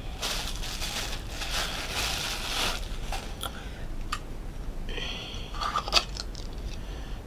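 Packaging crinkling and rustling as a small lotus oil burner is unwrapped, densest in the first three seconds, then scattered clicks and a sharp knock about six seconds in.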